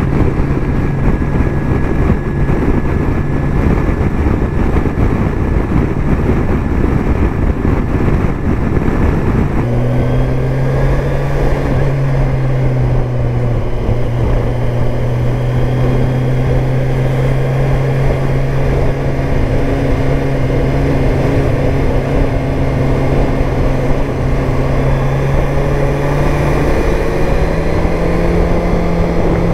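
Kawasaki Versys 1000 S inline-four engine running steadily while riding, with heavy wind rumble on the microphone. About ten seconds in the wind noise drops away and the engine note comes through clearer, and near the end the engine pitch rises slightly.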